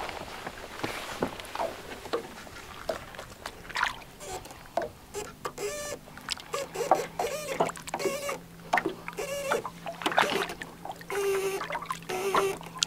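Lake water sloshing and splashing against hands and the boat's side as a musky is held in the water for release, with many small splashes and drips. In the second half come short squeaky chirps and a faint steady hum.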